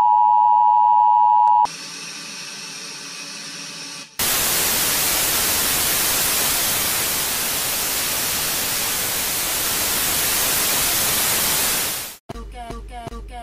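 A loud, steady two-tone emergency-broadcast attention signal cuts off about a second and a half in. A quieter buzzing tone with many overtones follows for a couple of seconds, then loud, even TV static hiss for about eight seconds. The hiss fades out just before music starts near the end.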